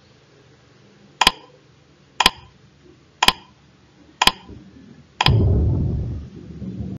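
Countdown timer sound effect: a sharp tick once a second, five times. On the last tick, as the count reaches zero, a louder low sound begins and fades out over about two seconds.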